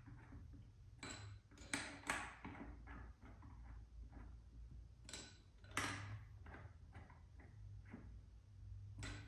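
Light metallic clicks and taps, scattered and irregular, from small metal wheel hardware being handled and fitted at the hub of a motorcycle front wheel. A low steady hum runs underneath.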